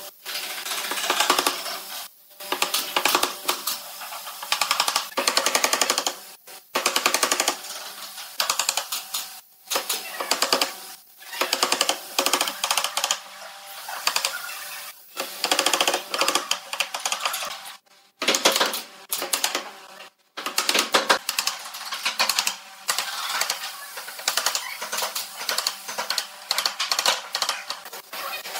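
Mallet striking a wood chisel in quick runs of taps, chopping out wood at the corner of a wooden frame, with short pauses between runs.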